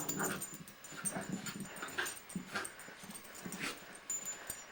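Two dogs play-fighting: a string of short, irregular whines and yips, with scuffling.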